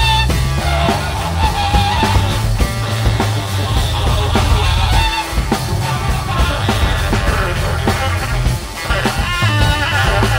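Live improvised jazz: a baritone saxophone plays a melodic line over a drum kit, electric guitar and a heavy bass end.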